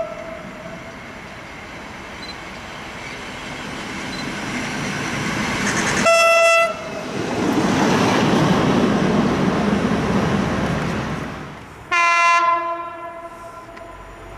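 A WM15 track motor car sounds a short single-tone horn about six seconds in, then passes close by, its engine and wheels running on the rails. Near the end comes a different, lower-pitched horn blast from a Class 66 diesel freight locomotive.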